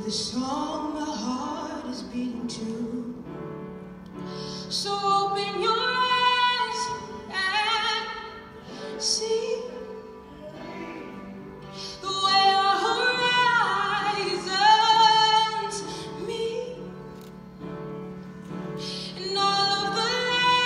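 A woman singing a ballad in long-held high notes with vibrato, in several phrases, over piano accompaniment.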